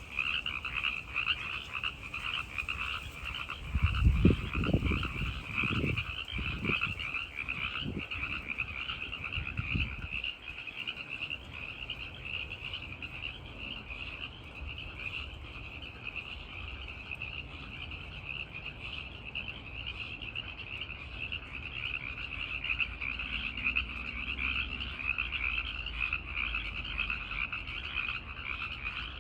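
A dense chorus of male tree frogs calling, the breeding chorus in which males call to attract females, a steady, unbroken trill of many overlapping voices. A few low thumps come between about four and ten seconds in, the loudest of them near the start of that stretch.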